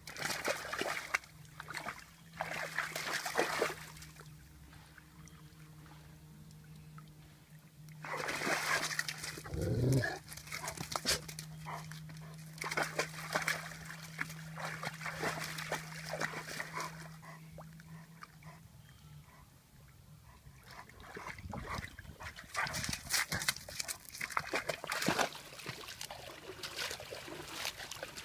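A white high-content wolfdog making wet licking and lapping mouth sounds in several short bouts of quick, irregular clicks. A brief low sound slides up and down about ten seconds in.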